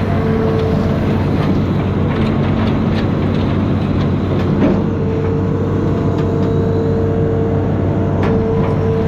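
Amphibious excavator's diesel engine running steadily, with a higher whine over it that drops out for a couple of seconds and then returns, and a few faint clicks.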